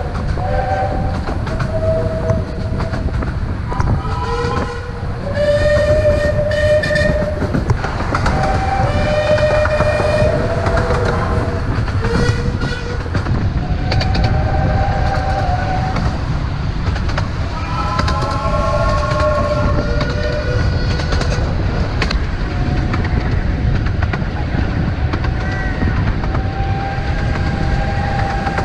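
Miniature steam locomotive whistle blowing a long series of chord-like blasts that change pitch from one blast to the next, over the steady low rumble and clatter of the carriages running on the track.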